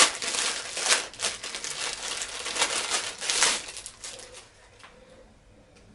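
Clear plastic packaging bag crinkling as it is handled and opened. The crinkling is loudest for about the first three and a half seconds, then drops to a few faint rustles.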